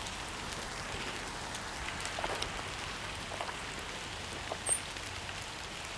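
Steady rain falling, with scattered sharper drip taps close by, the loudest about four and a half seconds in.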